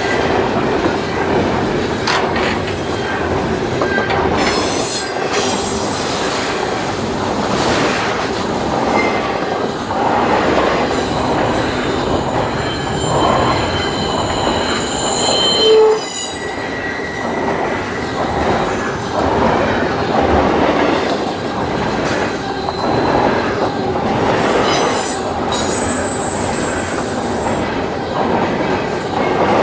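Double-stack container train of well cars rolling past at speed: a steady rumble of steel wheels on rail with clicking over the rail joints and stretches of high-pitched wheel squeal. About halfway there is one brief loud knock.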